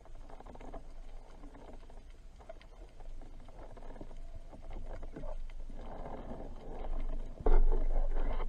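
Muffled underwater noise picked up by a diver's camera: uneven swishing of water with scattered small clicks, growing louder, then a sudden louder low rush about seven and a half seconds in.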